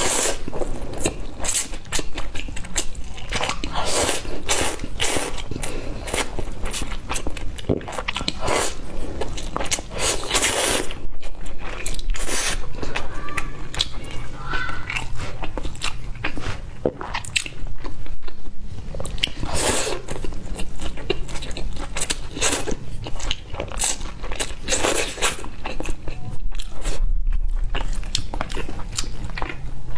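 Close-miked eating of black pepper pasta noodles: slurping the noodles in and chewing them, in a continuous run of short mouth noises.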